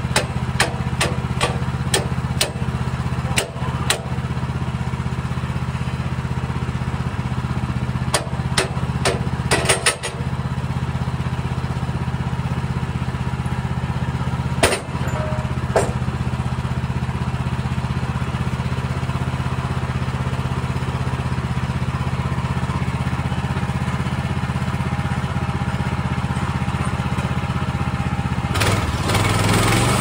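Woodland Mills HM130MAX portable bandsaw mill's engine idling steadily, with sharp clicks and knocks in the first ten seconds and twice more at mid-point as the log is set and clamped on the mill bed. Near the end the engine speeds up.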